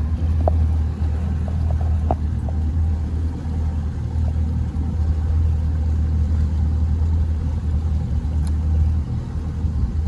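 Mercury outboard motor running at slow trolling speed: a steady low rumble that stays even throughout.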